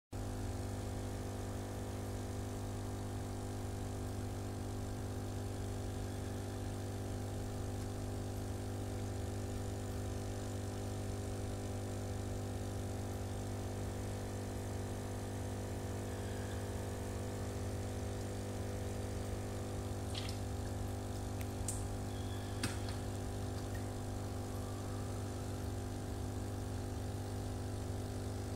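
Aquarium pump humming steadily, a low electric buzz with a string of overtones. A few light clicks come about twenty seconds in.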